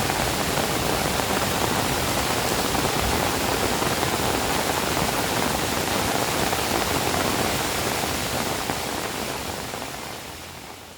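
Steady downpour of rain, an even dense hiss, fading out over the last few seconds.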